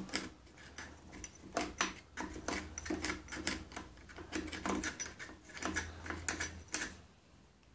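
Irregular light clicks and rubbing from fingers handling a motorcycle's clutch lever and cable end, with a faint steady hum underneath.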